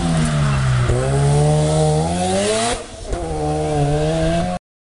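Rally car engine pulling hard out of a hairpin. Its note dips, then climbs steadily, eases off briefly about three seconds in, and runs steady again before the sound cuts out abruptly near the end.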